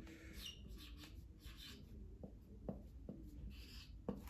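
Faint pen writing: several short scratching strokes as sound buttons are drawn under a word, with a few light taps.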